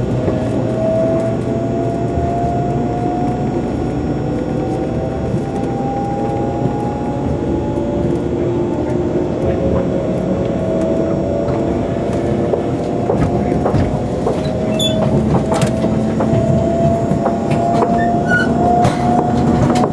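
JR 300 series Shinkansen heard from inside a passenger car as it accelerates: steady running rumble with the traction motors' whine climbing slowly in pitch. A few sharp clicks come in the second half.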